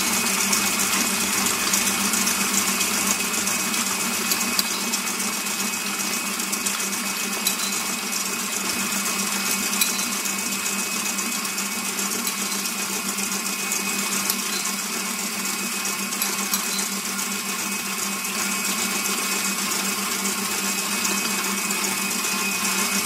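Electric mixer running steadily at an even speed, whisking egg yolks with caster sugar in a bowl to beat them up until foamy.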